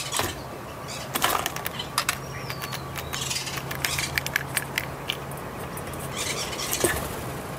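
A Steller's jay rummaging in a stainless steel bowl of in-shell peanuts: shells clicking and rattling against the metal and each other, and its claws on the bowl rim. There are many sharp clicks, with short noisy flurries about a second in and near the end.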